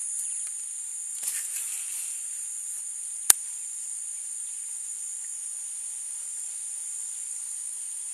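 Steady high-pitched chorus of insects. A single sharp click comes about three seconds in.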